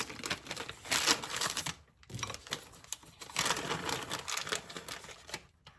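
Plastic bag crinkling, with a rapid run of small ticks, as chocolate morsels are shaken out of the bag. There are two short pauses.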